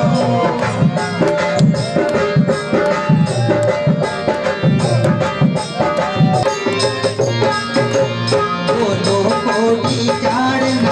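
Rajasthani chang music: chang frame drums beating a steady, driving rhythm under a wavering melody line.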